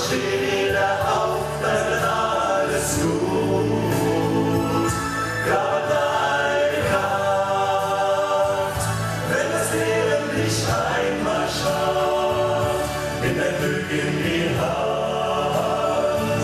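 Several men's voices singing together in harmony through microphones and a PA, over a musical backing.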